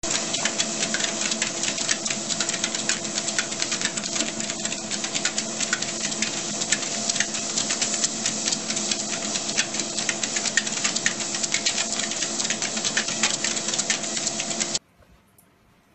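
ProForm treadmill running: a steady motor hum and whirr with fast, irregular clicking over it. It cuts off suddenly near the end.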